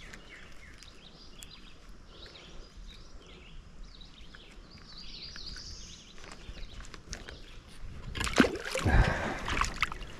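Birds chirping faintly over quiet river ambience, then about eight seconds in a loud burst of close water splashing and sloshing for about two seconds.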